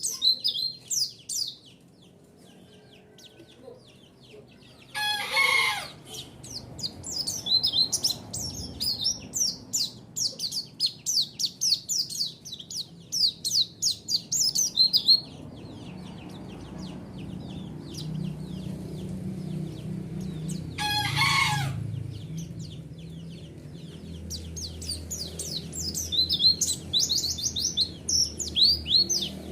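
White-eyes (pleci) singing rapid, high-pitched chattering trills in bursts, with a rooster crowing twice, about five seconds in and again about twenty-one seconds in.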